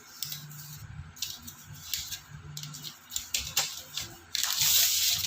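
iPad box and packaging being handled: light clicks and rustles, then a loud rasping rush about four seconds in that lasts about a second.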